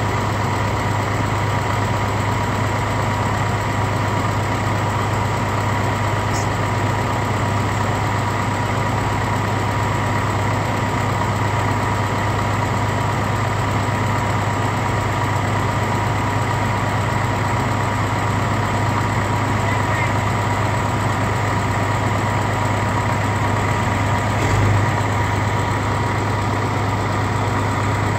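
Caterpillar crawler tractor's engine idling steadily: a low, even drone with a constant higher whine over it. A single low thump about 25 seconds in.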